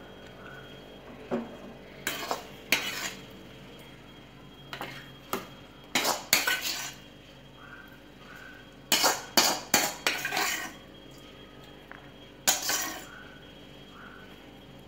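A steel ladle and spatula scraping and knocking against an iron kadai and a serving bowl as cooked drumstick masala fry is scooped out and served. It comes in irregular clusters of sharp clatters, the loudest about six seconds in, around nine to ten seconds, and near twelve and a half seconds.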